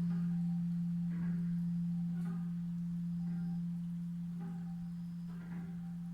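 Large hanging Japanese temple bell (bonshō) ringing out after a strike: a deep steady hum fading slowly, with higher overtones swelling and fading about once a second.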